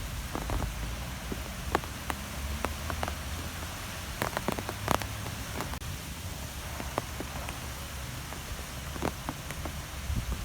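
Outdoor wind ambience: a steady low rumble and hiss, with many irregular sharp ticks and patters scattered through it.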